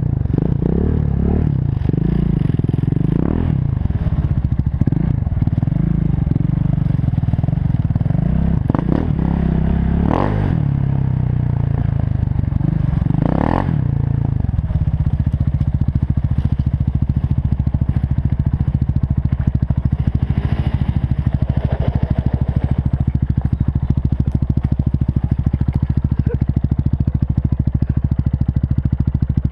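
KTM Duke 690's single-cylinder four-stroke engine being ridden over rough ground, its revs rising and falling, then settling about halfway through into a steady, evenly pulsing idle.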